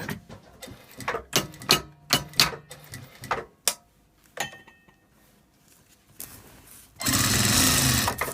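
A series of irregular clicks and taps from handling the work, then a sewing machine starts stitching about seven seconds in and runs fast and steady, sewing Velcro onto a shirt front in place of buttons.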